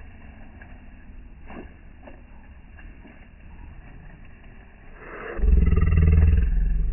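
Low rumble of a nearby vehicle engine, turning suddenly loud and throbbing about five seconds in, as if revving or pulling close.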